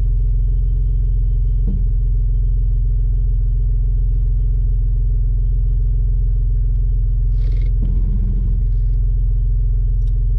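Off-road 4x4's engine idling steadily, heard from inside the cab, with a short noise about seven and a half seconds in.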